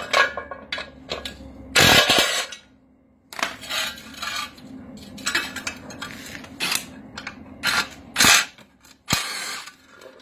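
Metal clinks, knocks and scrapes of lawn mower blade parts being handled: a cutting blade, bolts and washers coming off the blade disc and being set down on concrete. The loudest clatter comes about two seconds in, with another sharp knock near the end.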